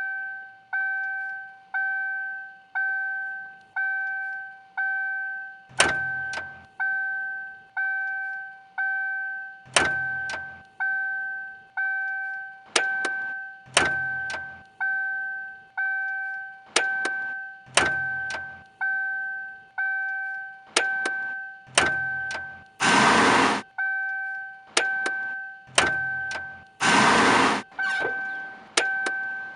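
Mercury Grand Marquis warning chime dinging about once a second, each ding a two-tone note that fades quickly. Sharp clicks and knocks from the car's controls and latches fall in time with it, and two noisy bursts of about a second each come near the end.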